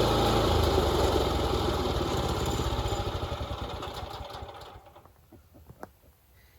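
Engine shut off and winding down: its even beats slow and fade away over about five seconds, then a few light clicks.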